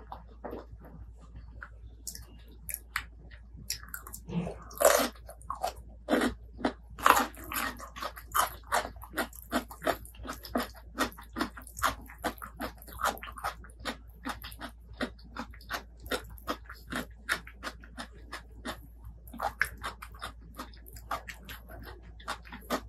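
Close-miked mouth sounds of a person chewing and crunching food, with wet, crunchy bites coming in a steady rhythm of about two a second.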